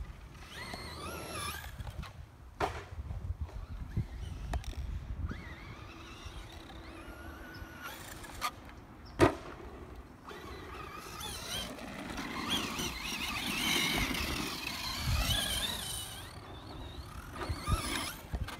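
Brushless electric motor of a 1/10 RC monster truck whining, its pitch rising and falling with the throttle, loudest around twelve to fifteen seconds in. Sharp knocks break in, the loudest about nine seconds in.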